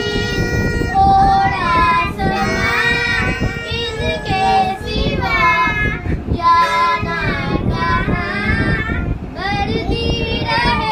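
A boy singing, phrase after phrase, his high voice wavering, with short breaks between phrases.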